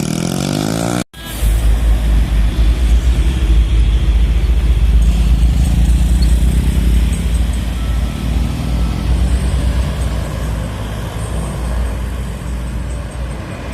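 Heavy road traffic passing on a rain-wet road, with a deep rumble of large vehicles that is loudest in the first half and then eases. The sound cuts out briefly about a second in.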